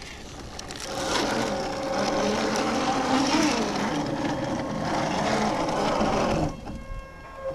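RC scale off-road truck's electric motor and gears whining as it crawls through mud, the pitch wavering with the throttle. It dies down about six and a half seconds in.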